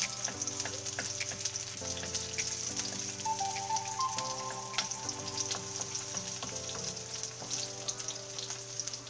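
Sliced onion and garlic sizzling in hot oil in a wok, with the clicks and scrapes of a wooden spatula stirring them, over background music.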